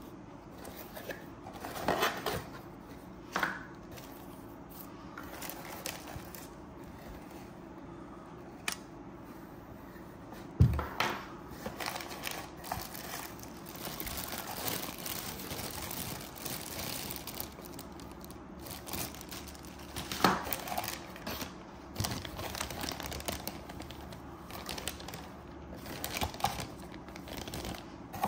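Cardboard box and plastic bags being handled and unpacked: irregular crinkling and rustling of plastic, with scattered taps and knocks as parts are set down, the loudest about eleven and twenty seconds in.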